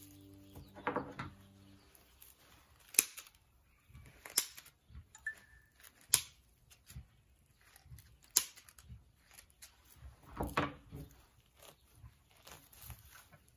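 Four sharp clicks a second or two apart and two short bursts of rustling, from hand work. Background music fades out at the start.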